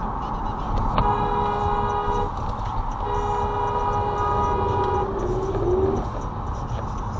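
A two-tone car horn sounds twice: a blast of just over a second about a second in, then a longer blast of about two seconds that trails off into a falling tone. Steady road noise runs underneath.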